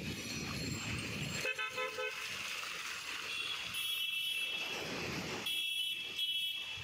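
Vehicle horns honking in street traffic: a half-second horn blast about one and a half seconds in, then higher-pitched toots around four seconds and twice near the end, over a low traffic rumble.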